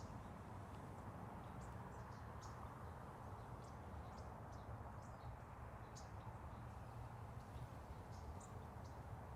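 Faint outdoor ambience: a steady low rush, with small birds giving short high chirps here and there.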